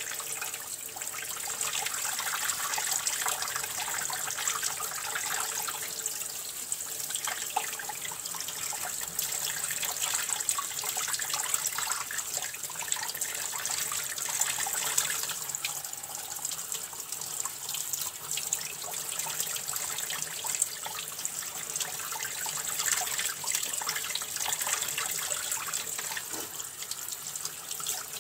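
Kitchen tap running, with water splashing and spattering as leafy greens are rinsed under it by hand in the sink.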